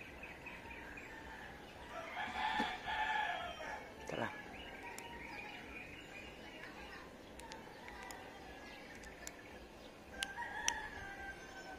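A rooster crows about two seconds in, one call of about a second and a half, and gives a shorter call near the end. Faint small clicks come from a flat-blade screwdriver working the tiny screws of a plastic alarm remote.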